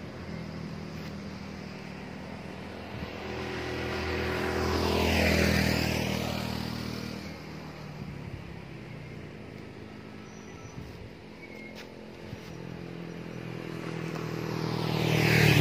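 Motor vehicles passing on the road, engine and tyre noise under a steady low engine drone. One passes about five seconds in, swelling and then fading, and a second approaches and passes at the very end.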